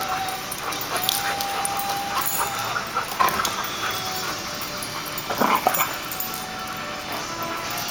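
Two dogs, a golden retriever and a black-and-tan dog, making vocal sounds while play-fighting and mouthing each other, with louder outbursts about three and five and a half seconds in.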